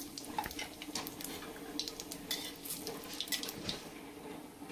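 Whole cumin seeds and bay leaves sizzling in hot oil, with scattered sharp crackles and pops: the spices tempering in the oil.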